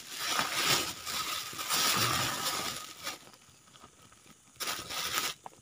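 Thin black plastic bag crinkling and rustling as it is pulled open and rice is tipped out of it. The crinkling is loud for about three seconds, then falls away to a few soft taps and clicks near the end.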